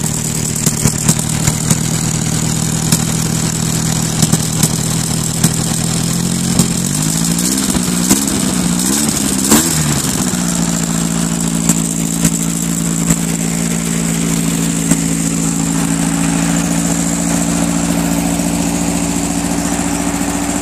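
Freshly rebuilt 1600cc air-cooled VW flat-four idling through a single stinger exhaust pipe. About a third of the way in, the engine speed wavers up and down a few times, then settles at a slightly faster steady idle.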